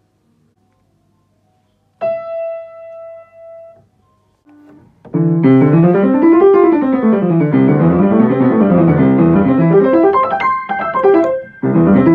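Kawai grand piano: after a moment of silence a single note is struck and held, then fast arpeggios sweep up and down the keyboard in a finger warm-up, ending in quick broken chords near the end.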